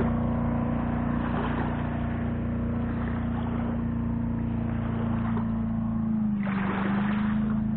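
Engine of a 1973 Tahiti boat running steadily as the boat cruises across the lake. Its pitch dips slightly about six seconds in and then rises again, with a burst of rushing noise near the end.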